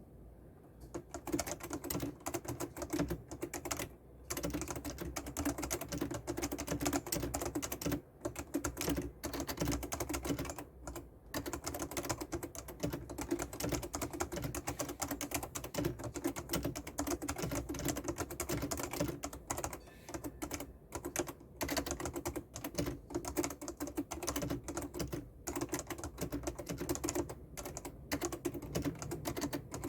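Fast, continuous typing on a Fujitsu Peerless FKB4725 keyboard, whose spring-over-rubber-dome keys with PBT keycaps clack in rapid runs, broken by a few brief pauses. The typing begins about a second in.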